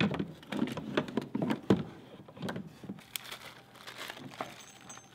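A plastic bag of drain parts crinkling and rustling as it is handled, with light clicks. The sounds are busiest in the first three seconds and then thin out.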